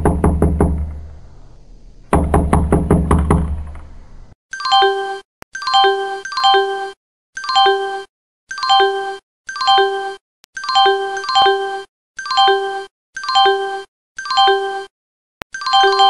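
Soundtrack of electronic sound effects. First comes a fast run of knocks over a low thud, which breaks off and restarts about two seconds in. Then one bright chime-like tone repeats about once a second, each short, with silence between.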